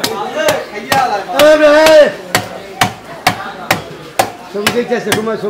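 Rhythmic chopping knocks on a wooden block, about two a second, typical of a fish-market cleaver at work. A long, wavering call from a voice rises over them about a second and a half in.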